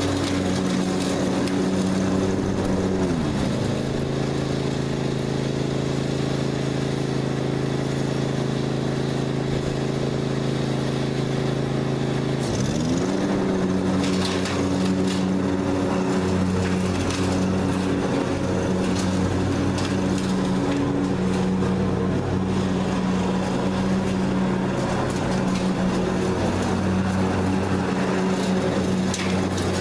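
John Deere zero-turn riding mower with a rear grass bagger, its engine running steadily while mowing. The engine note drops about three seconds in and climbs back up about twelve seconds in.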